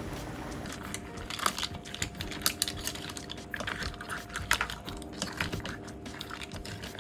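Rapid, irregular sharp clicks and clinks of hard objects knocking together, starting about a second in, over a faint steady background tone.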